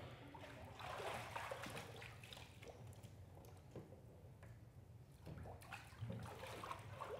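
Faint water sloshing and trickling in a church baptistry as people move through the water, over a low steady hum.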